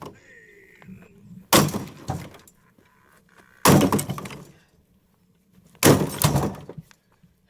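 Three loud sudden bangs about two seconds apart, each followed by a crashing, shattering tail that fades over about a second: pistol shots striking and breaking targets.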